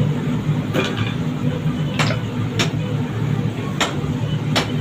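A steady low mechanical hum with five sharp clicks or knocks spread irregularly through it, about half a second to a second apart.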